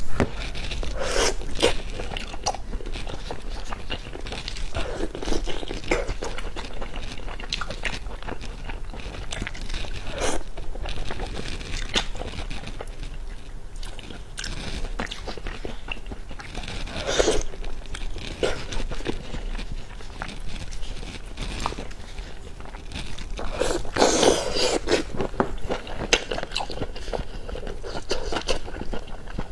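A person eating fish close to the microphone: chewing and crunching with scattered wet clicks and smacks, in several louder bouts.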